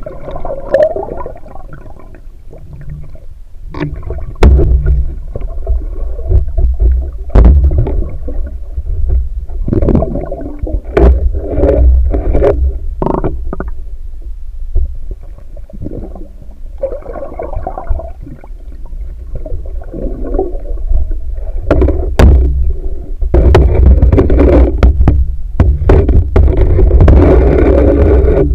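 Muffled underwater noise in murky river water during night spear fishing: a low rumble and gurgling water movement with many scattered sharp clicks and knocks, loudest near the end.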